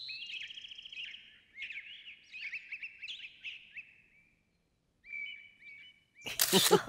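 Songbirds chirping in quick trills for about four seconds, then a short chirp after a pause. Loud music comes in near the end.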